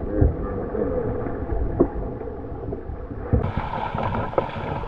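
Water sloshing and gurgling around an inflatable canoe paddled through a sea-cave tunnel, with a low steady rumble of swell and a few sharp knocks of paddle strokes.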